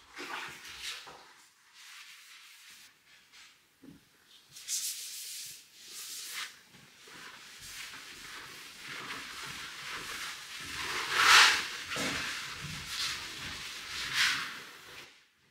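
Cloth rubbing over a wall in irregular wiping strokes, each a short scrubbing hiss, the loudest a little past the middle.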